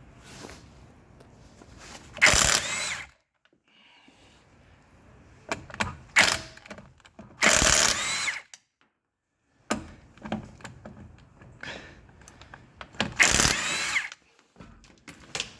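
A handheld power tool, a drill or driver, runs in three short bursts of about a second each, its motor pitch rising and falling. It is driving nuts or bolts while the coilovers are fitted to the car, with a few light metal clanks in between.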